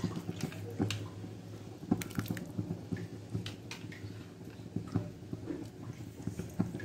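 Hot milky water simmering in an electric rice cooker: irregular small pops and ticks over a steady low hum.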